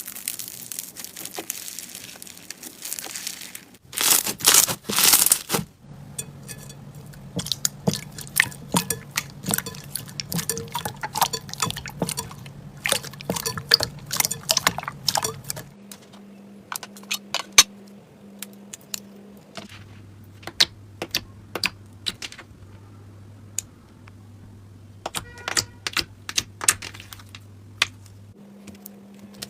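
Slime being squished and poked by hand: wet, sticky clicks and pops, thick for the first half and sparser later, with a louder squelching burst about four seconds in.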